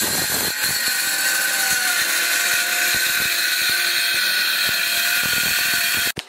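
Makita cordless circular saw cutting through a long board, its motor whining steadily under load, until it stops abruptly about six seconds in.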